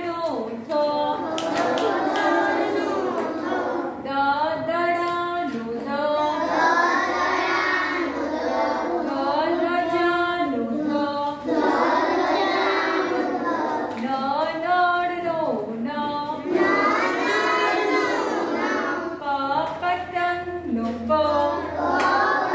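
A group of children chanting the Gujarati alphabet letters in a sing-song recitation, each syllable drawn out, with a woman's voice among them.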